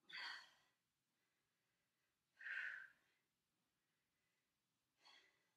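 A woman breathing out hard during dumbbell side bends: three short, breathy exhalations about two and a half seconds apart.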